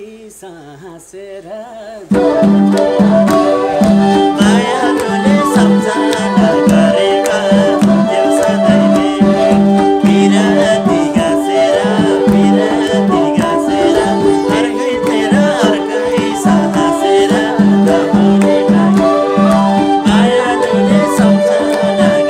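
A man's voice alone, then about two seconds in a Nepali dohori folk band comes in loudly: sarangi, keyboard and madal drum playing with a steady beat, with singing over it.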